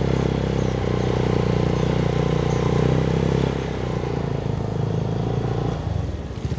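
Motorcycle engine running steadily at low revs, with an even pulsing beat and a brief dip in level near the end.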